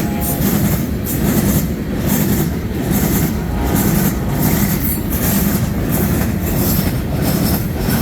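Freight train cars rolling past close by: a steady, loud rumble of steel wheels on rail with a regular repeating clatter as the wheel sets pass.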